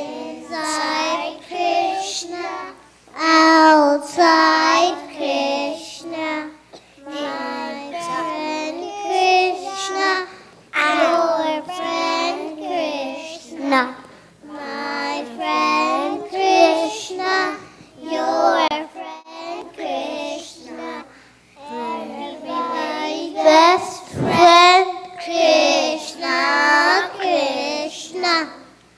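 A group of preschool children singing a song together, in short phrases of a few seconds each with brief pauses between them.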